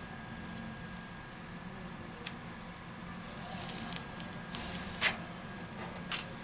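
Handling of a smartphone in the hands: a few sharp clicks and taps and a brief patch of quick rustling clicks as fingers grip and turn the phone's glass and metal frame. The sharpest click comes about five seconds in. A low steady hum runs underneath.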